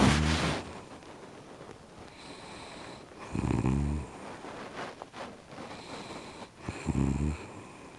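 Snoring: three low snores about three and a half seconds apart, each lasting about half a second.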